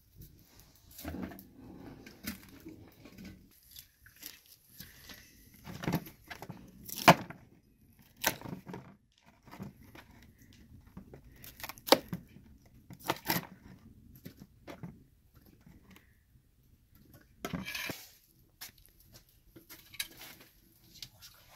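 A knife cutting and snapping florets off a raw cauliflower head, with irregular crisp cracks and taps as pieces break off and drop into a plastic bowl.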